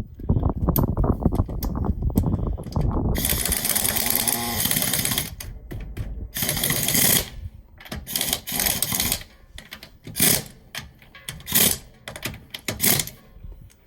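Pneumatic impact wrench hammering lug nuts onto a car wheel: a long rattling run at first, then several short bursts as each nut is snugged up to about 80 foot-pounds.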